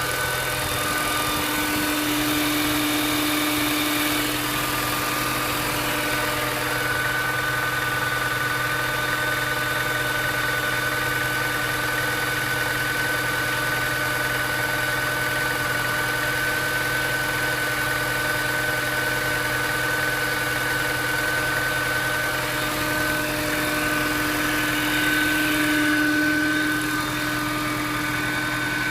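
Mini Cooper S engine idling steadily with a constant high whine over the engine note, an abnormal engine noise that comes with the check-engine warning light being on.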